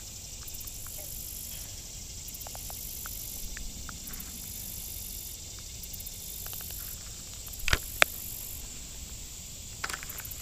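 Insects chirring high in the background in spells that switch on and off every second or so, with light clicks of fishing tackle. About eight seconds in, a fishing rod is cast: a quick swish and a sharp click, followed by a few reel clicks near the end.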